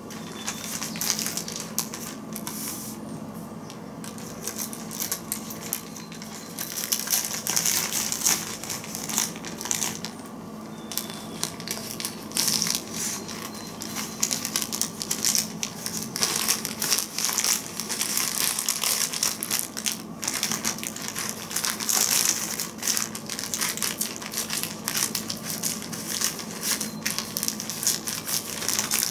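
Plastic ziplock bag crinkling and rustling in uneven bouts as a feather-fletched arrow is pushed in and ruffled around in waterproofing powder inside it.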